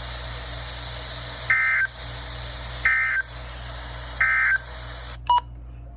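Emergency Alert System end-of-message: three short bursts of SAME digital data tones, each a brief shrill screech, about 1.3 seconds apart, over steady radio hiss and hum. The three bursts close out the warning. A short click comes near the end.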